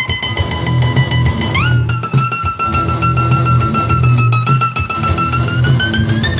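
Improvised instrumental music: plucked strings repeat a low rhythmic figure under a long held lead note. The lead note slides up in pitch about a second and a half in, holds, then slowly rises again near the end.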